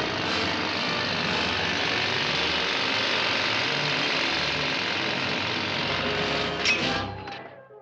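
A continuous mechanical rattling and clattering, steady in level, fading out near the end.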